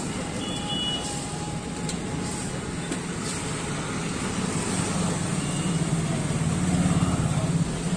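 Sugarcane crusher's motor running steadily with a low hum, getting a little louder about five seconds in.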